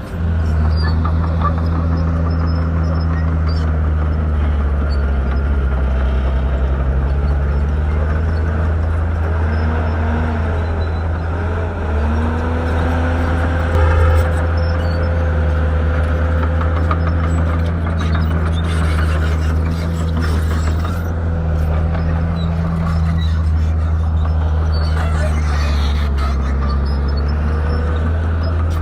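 Shantui bulldozer's diesel engine running steadily under load, its pitch drifting up and down as the load changes, with a short knock about halfway through.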